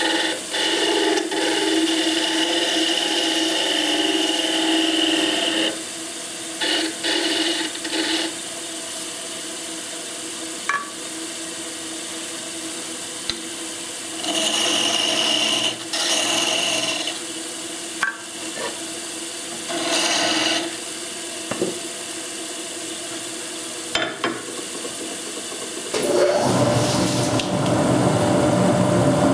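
Wood lathe spinning an elm egg while a hand-held turning chisel cuts into it in several short scraping passes, the longest at the start; between cuts the lathe runs with a steady hum. Near the end a louder steady mechanical noise starts.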